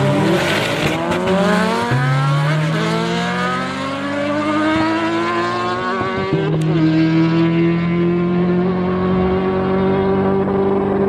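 Car engine accelerating hard, its pitch climbing steadily for about six seconds and then holding level, with a rushing noise in the first second.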